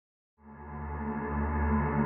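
Intro music: a deep, sustained gong-like swell that fades in about half a second in and keeps growing louder.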